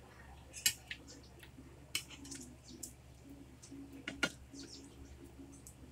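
Spoon and fork clinking and scraping against plates during a meal of rice and adobo. There are several sharp clinks, the loudest about four seconds in, with lighter ticks between them.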